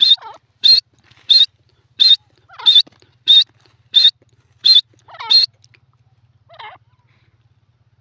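Grey francolin calling: about nine short, sharp, high-pitched calls evenly spaced about two-thirds of a second apart, then a pause and one fainter, lower call near the end.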